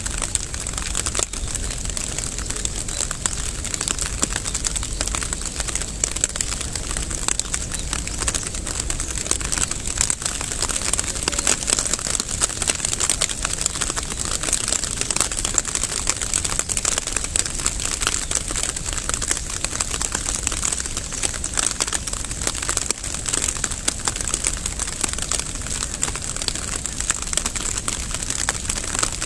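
Steady rain, a dense crackling patter of many fine drops that keeps on without a break.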